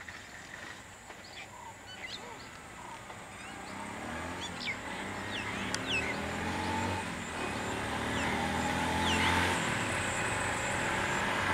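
Small motorcycle engines approaching and growing steadily louder from about four seconds in, the pitch shifting gently. Birds chirp now and then through the first part.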